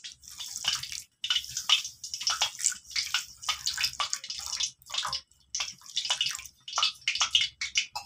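Water poured from a vessel onto a heap of granulated sugar in a pan, splashing and trickling unevenly with short breaks; just enough water to cover the sugar, the start of a sugar syrup.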